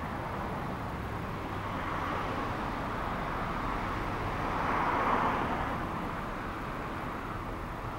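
Outdoor background noise with a passing vehicle that swells to a peak about five seconds in and then fades.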